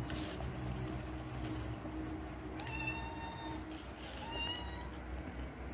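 A cat meowing twice, short high-pitched calls about three seconds in and again about a second later, over a steady low hum.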